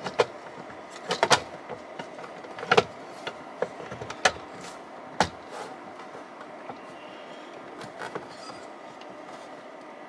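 Cover of a Midnite Solar photovoltaic combiner box being pushed and slid into place by hand: a run of sharp clicks and knocks, the loudest about a second in and near three seconds, thinning to occasional light taps.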